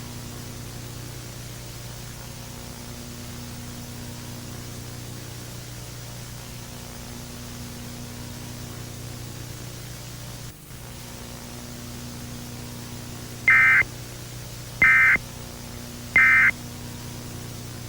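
Steady broadcast static hiss over a low, steady hum, then near the end three short, shrill electronic data bursts about a second and a half apart: the Emergency Alert System's end-of-message (NNNN) tones closing the alert.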